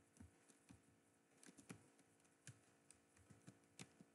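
Faint, unhurried typing on a computer keyboard: about ten separate keystrokes spread unevenly over a few seconds as a word is typed.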